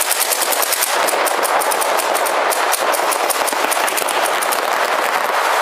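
Paintball markers firing in rapid, continuous strings, many shots a second, with the shots overlapping into a steady rattle.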